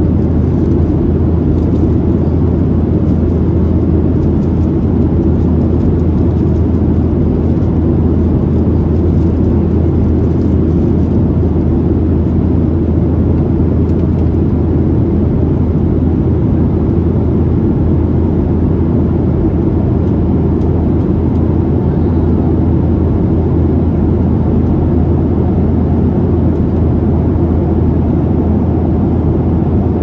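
Steady in-flight cabin noise of a Boeing 737-700: the even, loud drone of its CFM56-7B turbofans and the airflow over the fuselage, with a constant deep hum underneath.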